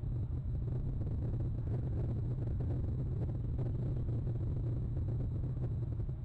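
A steady low rumble, even in level throughout.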